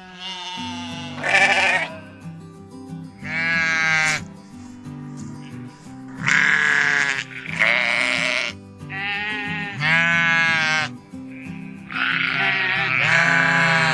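Sheep bleating about seven times, each a long wavering call, over background music with steady low notes.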